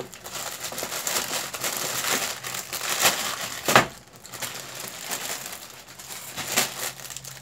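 Plastic pastry wrapper crinkling and crumpling as it is handled, with a few sharper crackles, the loudest about four seconds in.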